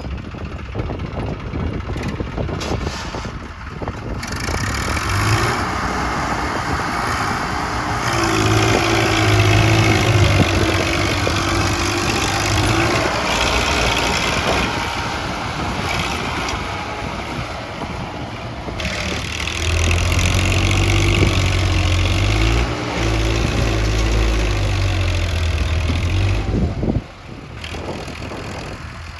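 JCB 3DX backhoe loader's diesel engine running, its revs rising and holding for several seconds twice, as when working the hydraulics. The sound drops away sharply for a moment near the end.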